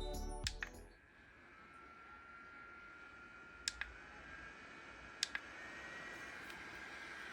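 Background music fades out, then a small electric fan runs with a faint whine. Two button clicks come a second and a half apart, and after each the whine steps up in pitch as the fan speed is raised.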